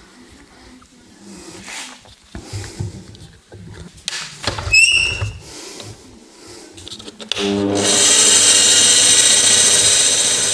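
Light knocks and handling, then about seven seconds in a power drill starts and runs steadily with a high hiss. It is boring a 10 mm hole through a rubber indicator mount that has a small metal sleeve inside.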